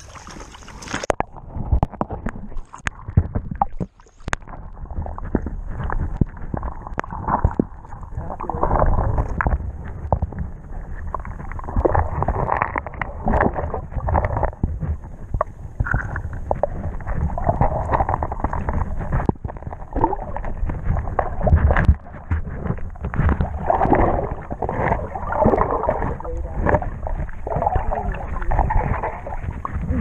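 Flowing water in a shallow rocky creek heard from under the surface: a dense, muffled rumble and gurgle with scattered clicks and knocks. The higher sounds cut off about a second in, when the microphone goes under water.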